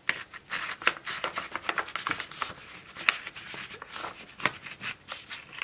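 Crisp crackling and rustling of a clear laminating-sheet pocket and paper as hands press and slide a sheet of paper into the tight-fitting pocket, with many small irregular crackles throughout.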